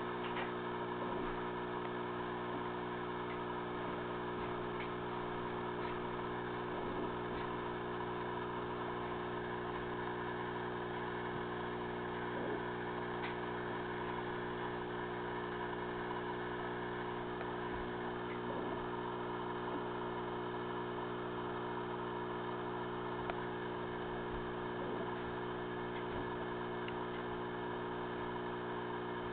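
A steady, unchanging hum made of several fixed low tones, with a few faint ticks.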